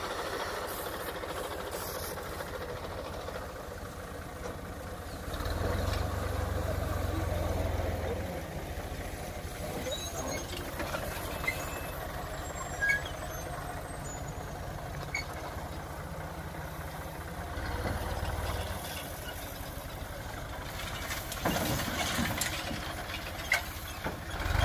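Tractor's diesel engine running steadily as it drives a mounted boom sprayer slowly through a crop field. The low rumble swells louder about five seconds in and again around eighteen seconds.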